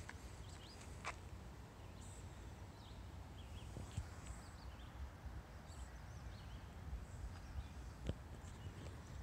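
Faint outdoor ambience: scattered bird chirps over a low steady rumble, with soft footsteps on grass about a second in, at four seconds and at eight seconds.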